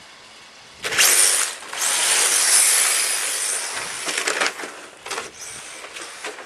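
HPI Sprint 2 RC drift car pulling away from close by: a rattly whir from its brushless motor and geared drivetrain, with its hard drift tyres scrabbling on the rough asphalt. It starts suddenly about a second in, runs loud for about three seconds, then comes back in a few shorter, fainter bursts as the car drives away.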